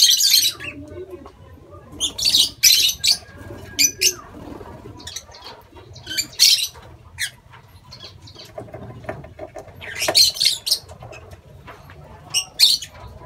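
Lovebirds flapping and calling: short, sharp, shrill bursts every second or two, the loudest right at the start and around two to three and ten seconds in.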